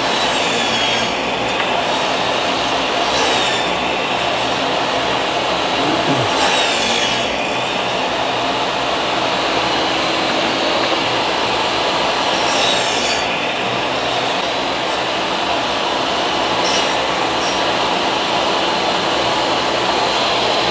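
Electric woodworking power tool running steadily at full speed, with a few brief high scraping sweeps as wood is worked against it.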